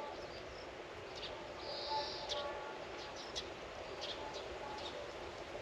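Birds calling outdoors: scattered short clear notes and quick high chirps over steady background noise.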